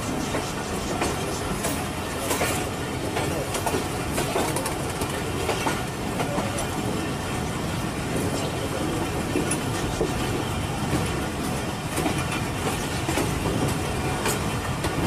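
Passenger train's own carriages running over the track, heard from an open carriage window on a curve: a steady rumble of wheels on rail, with the clickety-clack of the wheels crossing rail joints.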